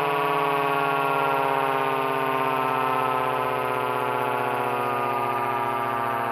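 Federal Model 77 electro-mechanical siren sounding one long, loud tone whose pitch slowly falls as it winds down.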